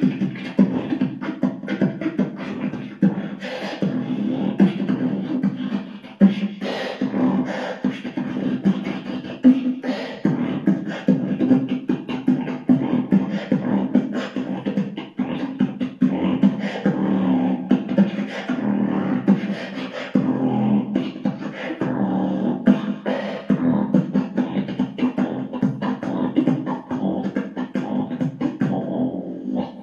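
A boy beatboxing into a handheld microphone: a continuous run of rapid percussive mouth sounds over a steady low hummed tone.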